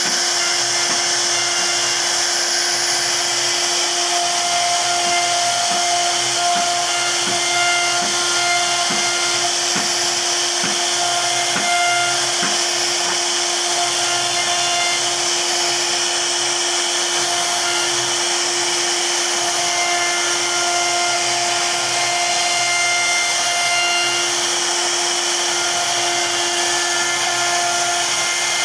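CNC router spindle running with a steady whine while its bit carves a relief pattern into a wooden panel, with a constant hiss of cutting. Higher tones come and go over the steady note as the bit moves.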